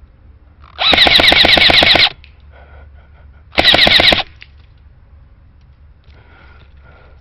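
Airsoft gun firing two rapid full-auto bursts: a longer one of about a second, then a shorter one about a second and a half later.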